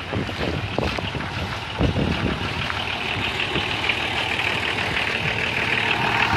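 A heavy vehicle's engine running close by, with footsteps on a muddy road and camera handling knocks, and a thump about two seconds in.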